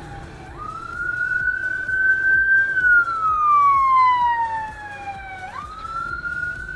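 Police siren wailing: the pitch jumps up, holds briefly, then slides slowly down over a few seconds before jumping up again, twice in all. It is loudest about halfway through, over the low rumble of motorcycle and traffic noise.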